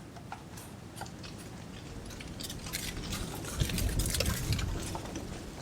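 Scattered clicks and scrapes of hands and a tool working at a car's spin-on oil filter, with a louder low rumbling stretch about three and a half seconds in. The filter is being turned the tightening way, righty tighty, instead of loosened.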